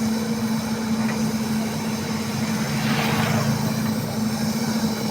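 Hitachi excavator's diesel engine running steadily, with a brief hiss about three seconds in.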